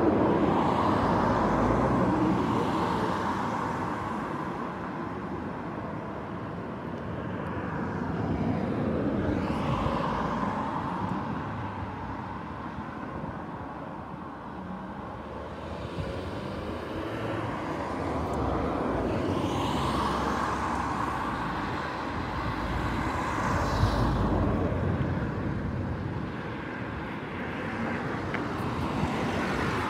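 Road traffic passing close by, vehicles going past one after another, each swelling and fading over a few seconds.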